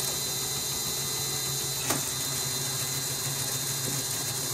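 Small electric motor driving a Meccano crawler tractor model, running steadily with a low hum, with a single sharp click about two seconds in as the gear lever is put into first gear.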